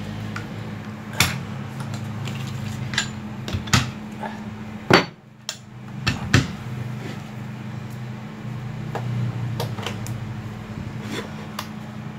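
Scattered metal clicks and knocks from handling a Makita electric demolition hammer with a pointed chisel bit and setting the bit down on a block, the hammer not yet running; the loudest knocks come about five and six seconds in. A steady low hum runs underneath.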